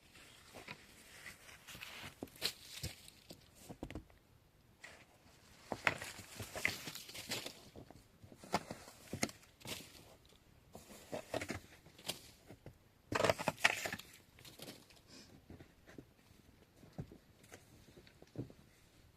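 Irregular rustling, crinkling and short knocks, as of a person moving about and handling things, with a louder cluster of rustling about two thirds of the way through.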